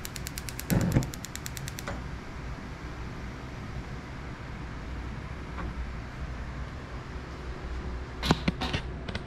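Gas hob's electric igniter clicking rapidly, several ticks a second, for about two seconds as a burner is lit, with a knock about a second in. Then a steady low hum, and a few quick clinks of a utensil on a pan near the end.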